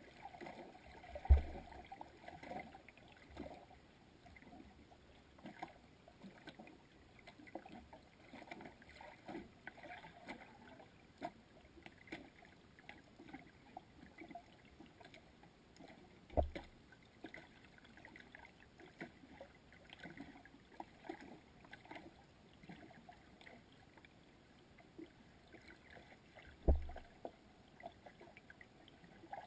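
Muffled underwater sound picked up by a submerged GoPro: faint, irregular clicks and crackles, broken by three dull, deep thumps, one about a second in, one midway and one near the end.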